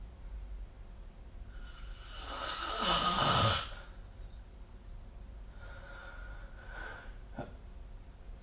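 A person snoring: one loud snore builds over about a second and a half near the middle, then a fainter snoring breath follows, with a brief click near the end.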